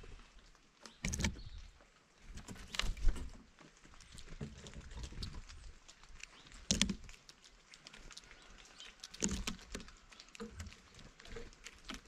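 Birds at a bird feeder: irregular taps and knocks as they land, hop and peck on it, with louder knocks about 1, 3, 7 and 9 seconds in.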